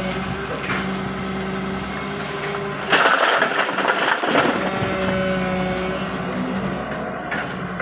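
LiuGong long-boom excavator's engine running steadily, with a louder, harsher noise from about three to four and a half seconds in, as the machine works soil into a tractor trolley.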